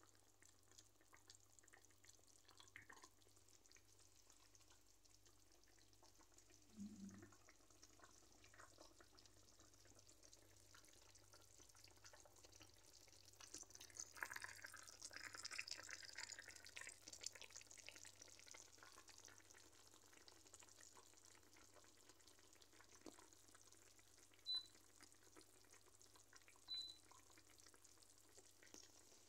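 Faint sizzling and bubbling of a whole fish simmering in a pan of liquid with tomatoes. Two short high beeps a couple of seconds apart near the end.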